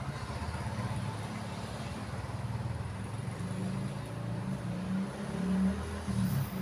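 A steady low motor hum with a slightly wavering pitch.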